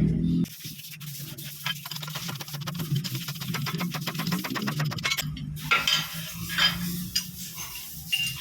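Metal tools and engine parts clicking and clinking during hand work on a motorcycle engine, with a run of rapid, even clicks in the middle and a few sharper knocks near the end, over a steady low hum.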